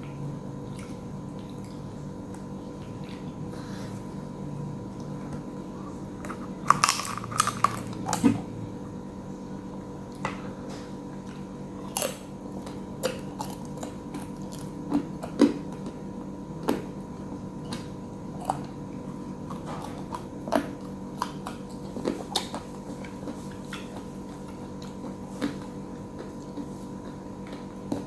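A person chewing and biting food close to the microphone, with scattered sharp clicks and crunches; the loudest cluster comes about seven seconds in. A steady hum runs underneath.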